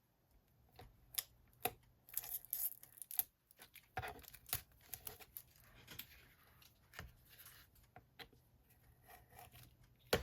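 Adhesive tape being peeled off paper in short rips, among light taps and rustling of paper.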